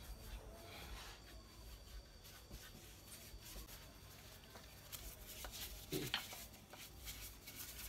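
Faint scratchy strokes of a paintbrush applying polish to a carved wooden statue, with small handling noises and a couple of light knocks about six seconds in.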